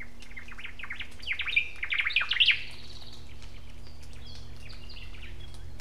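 'Omao (Hawaiian thrush) singing: a run of quick sweeping notes that builds for about two seconds, then fainter, higher notes. A steady low hum runs underneath.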